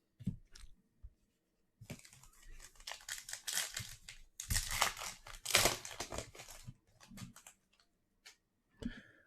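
A trading-card pack wrapper being torn open and crinkled, with a dense crackle in the middle stretch, then a few scattered ticks as it settles.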